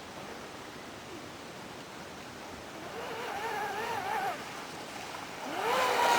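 Brushless electric motor of an RC boat whining over a wash of water and wind noise; the whine comes in about three seconds in, wavering in pitch, then sweeps up sharply and grows loudest near the end as the throttle opens.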